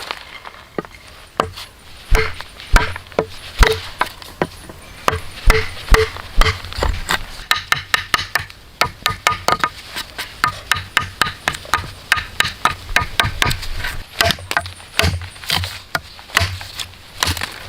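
Tools striking wood over and over in quick, irregular knocks, two to four a second; several of the strikes in the first few seconds ring briefly at one pitch.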